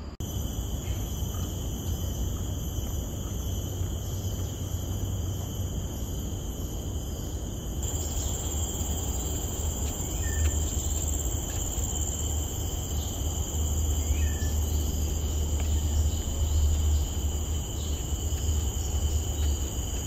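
Steady high-pitched chorus of forest insects, several shrill tones layered together, with another insect tone joining about eight seconds in. A low rumble sits underneath, and a few faint short chirps come through.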